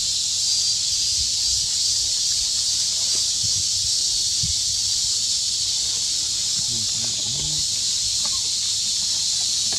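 Steady high-pitched insect chorus, such as cicadas, drones without a break, with faint rustling and scuffs of a small monkey moving through dry leaf litter.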